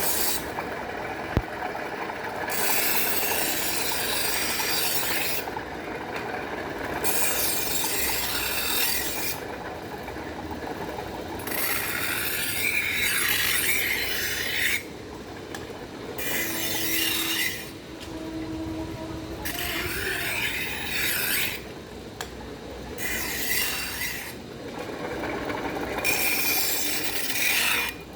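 Axe blade being sharpened: long, slow scraping strokes, about eight of them, each a few seconds long with short pauses between.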